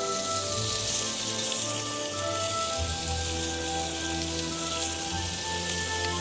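Soft background music of held notes over a steady high hiss, like rain or a simmering pot.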